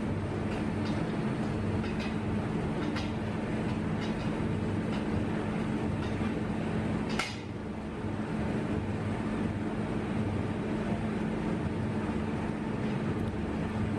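Hand-lever Baileigh sheet-metal shrinker working along the edge of a repair panel, its jaws gripping and shrinking the metal with a sharp metallic click about once a second and one louder snap about halfway through. A steady low mechanical hum runs underneath.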